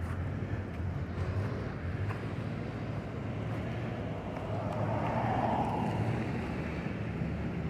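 Steady low rumble of outdoor traffic with wind on the microphone, swelling briefly about five seconds in.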